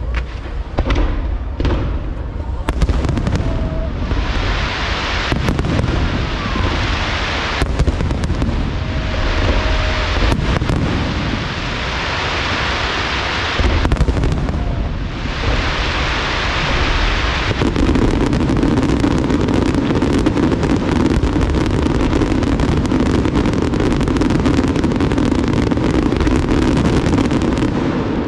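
Large fireworks display: aerial shells bursting one after another with sharp bangs and hissing crackle, becoming a dense, continuous barrage about two-thirds of the way in.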